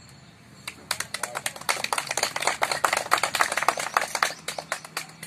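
A small group of people clapping: dense, irregular handclaps start about a second in, keep up for several seconds, and die away near the end.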